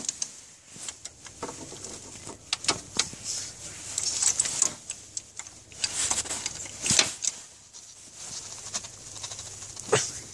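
Hand-tool work on a spark plug: scattered clicks, metal taps and scrapes of a homemade spark plug wrench, with rustling of hands and sleeve. Two sharper knocks come about seven and ten seconds in.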